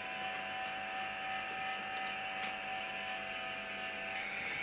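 Ham radio antenna rotator motor running steadily with a constant whine of several tones. It is turning the antenna through a full-length calibration sweep toward its end stop.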